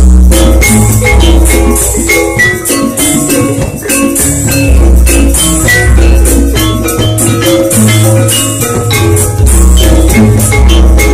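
Javanese gamelan ensemble playing loudly: thick-keyed sarons and bonang struck hard with mallets, kendang drums, and repeated deep low gong notes under the busy ringing metal melody. Picked up on a phone's microphone without a mixer.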